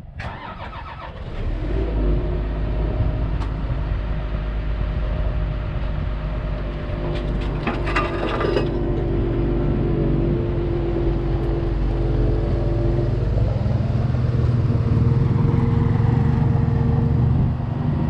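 Komatsu PC200 excavator's diesel engine cranking and catching about a second and a half in, then running steadily. About thirteen seconds in the engine note changes and a steady tone comes in as the hydraulics move the stick.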